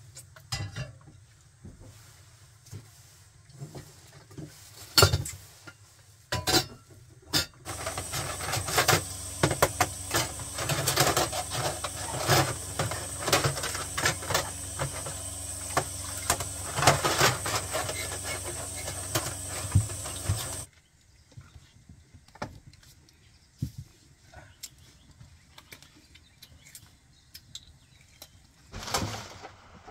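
Kitchen tap running into a sink while plates are washed, with clinks and knocks of dishes and cutlery. The water comes on about a quarter of the way in and shuts off abruptly about two-thirds through, leaving occasional clinks of plates.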